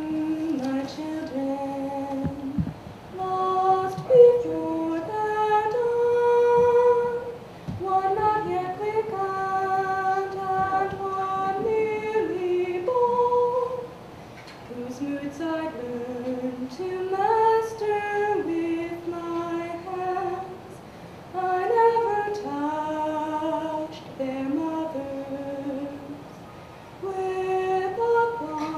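A woman singing solo and unaccompanied, holding long notes in phrases broken by short pauses.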